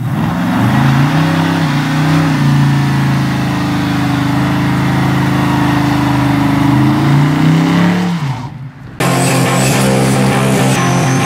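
LS3 V8 in a 1966 Ford F100 revving hard through a burnout, its revs rising and falling. About nine seconds in it gives way to guitar rock music.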